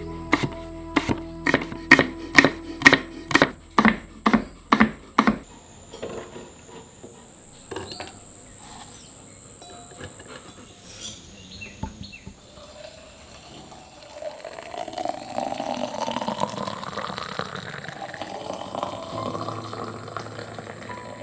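A kitchen knife chopping an apple on a wooden cutting board, about a dozen quick, even strokes. Then liquid is poured into tall glasses, twice, the pitch of the pour rising as each glass fills.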